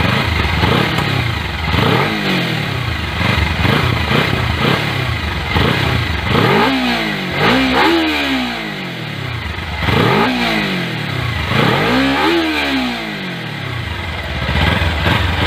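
Kawasaki Ninja 300 parallel-twin engine on its stock exhaust, revved again and again from idle, each rev rising in pitch and falling back.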